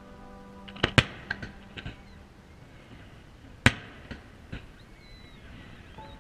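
Aerial fireworks shells bursting: two sharp bangs close together about a second in and the loudest bang just before the four-second mark, with smaller pops between and after them.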